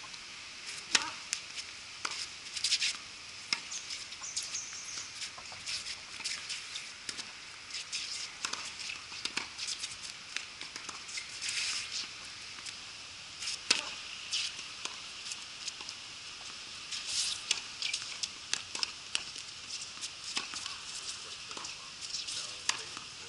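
Tennis rally: sharp pops of racket strings hitting the ball, with ball bounces, coming a second or two apart and thinning out in the pauses between points, over a faint steady high hiss.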